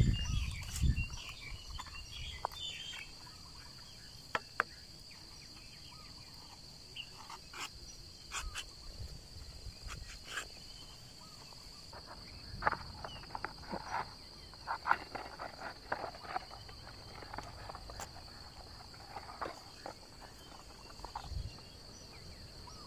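A steady high insect trill, with scattered crackles and rustles of dry bark and leaves being handled, busiest in the second half.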